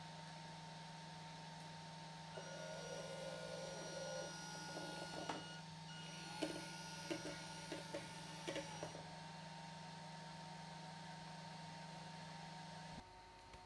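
Small electric motor of an RC model tipping trailer whining as it raises the tipper bed, then running again with several sharp clicks as the bed comes back down. A steady electrical hum runs underneath and cuts off near the end.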